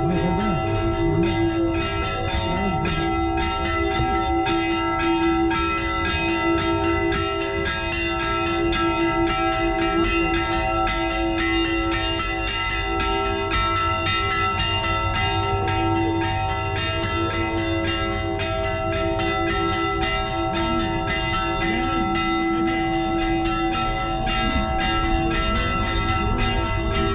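Church bells rung in rapid, continuous strikes, several a second, with the bell tones hanging on between strikes: a festive peal for a feast-day procession.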